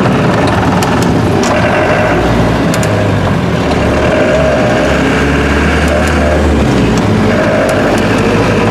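Land Rover Series II engine and drivetrain droning steadily, heard from inside the cab while driving slowly along a lane; the low engine note shifts in pitch a couple of times, with a few light rattles.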